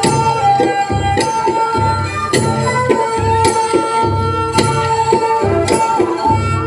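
Bodo folk dance music: a drum beating a steady rhythm and sharp cymbal-like strikes about once a second under a long, held melody line.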